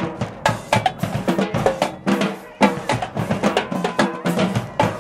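University marching band playing on the march: snare and bass drums beat out a fast, driving cadence, with short brass notes from the mellophones and trumpets.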